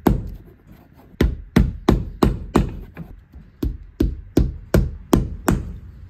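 Hammer blows in quick runs of five or six, about three a second, each a sharp strike with a brief ring, with short pauses between runs.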